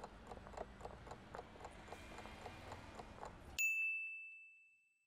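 Countdown timer sound effect ticking faintly, about four ticks a second, then a single bell ding about three and a half seconds in that rings out briefly, signalling that time is up.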